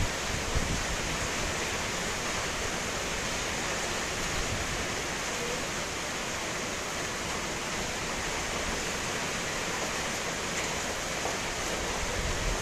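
Heavy tropical rain falling steadily, an even hiss with no let-up.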